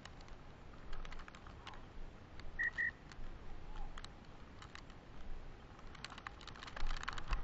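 Footsteps crunching through snow-covered grass and corn stalks, an uneven run of crackles and ticks, with two short high beeps about a third of the way in.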